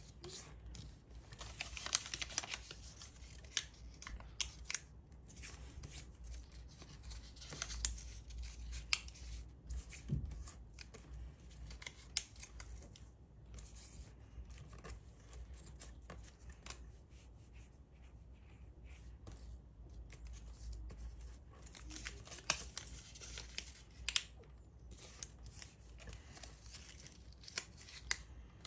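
A sheet of origami paper being folded and creased by hand: soft rustling and crinkling, with scattered sharp clicks.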